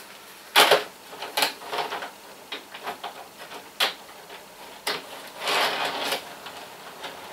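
Irregular clicks and knocks of an OO gauge model railway coach being handled and set onto the track, with a longer clatter about five and a half seconds in.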